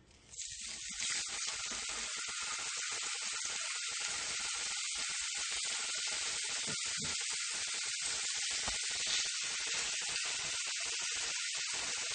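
Salmon steaks sizzling in hot oil in a nonstick frying pan: a steady sizzle that starts abruptly about a third of a second in, as the fish goes into the pan, and holds at an even level.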